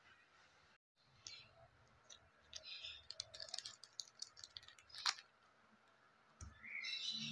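Crinkling and rapid clicking of a small clear plastic zip bag and its metal shoelace tag being handled and opened, with one sharper click about five seconds in.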